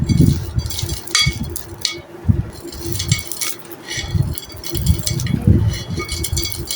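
Chunks of dry, stony-textured clay being crumbled by hand: irregular crisp crunching and clinking, with dull thuds.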